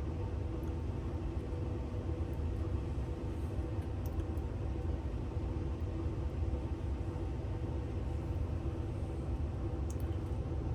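Steady low rumble with a faint, even hum over it, and a couple of faint ticks; no alarm beeping.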